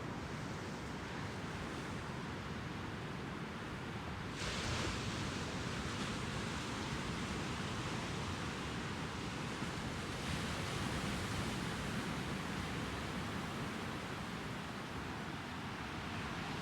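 Ocean surf washing onto a beach, a steady rush that swells louder about four seconds in and again about ten seconds in.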